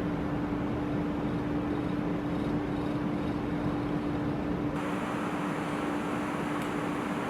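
Steady low mechanical hum and rumble with one constant droning tone. The higher hiss shifts in character about two-thirds of the way through.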